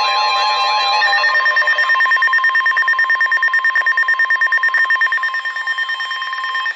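Electronic emergency-alert tones. A warbling, siren-like alert tone gives way about a second in to a rapidly pulsing steady two-tone beep. It is the attention signal that announces an incoming warning broadcast.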